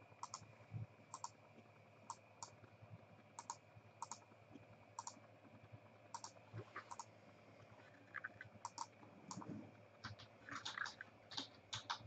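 Faint light clicks of a computer keyboard being typed on, in ones and close pairs with gaps between, coming quicker in the last couple of seconds.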